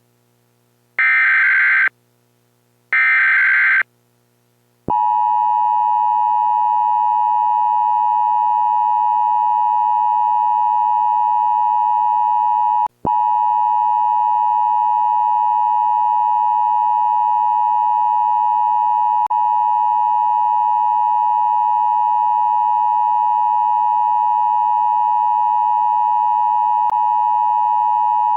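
Emergency Alert System SAME header: two short, buzzy one-second data bursts, which mark the start of an emergency alert. About five seconds in, a steady single-pitch NOAA Weather Radio warning alarm tone near 1 kHz begins. It runs on, broken only by a momentary drop-out about thirteen seconds in.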